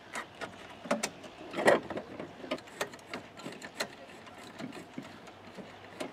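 Irregular metallic clicks and clinks of hand tools working on a car's brake master cylinder: brake line fittings being threaded in, then a socket wrench on an extension tightening a nut, the loudest clinks about a second and a half in.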